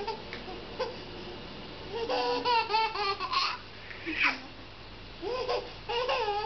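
Toddler laughing and babbling in several short bursts, the longest a run of quick laughing pulses about two seconds in, with a falling squeal about four seconds in.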